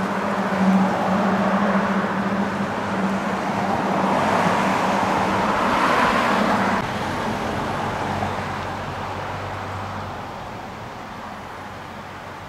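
A road vehicle driving past: a broad rushing sound with a steady low engine hum that builds to its loudest about six seconds in, then fades away.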